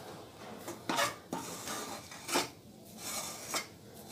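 A metal utensil scraping against steel cookware, with a few sharp clinks, as thick, hot Mysore pak mixture is scraped out and spread on a steel plate.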